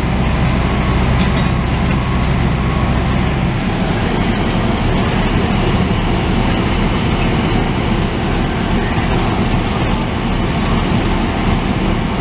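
Heavy engine running steadily under a loud, even rushing noise; its low hum shifts about three and a half seconds in.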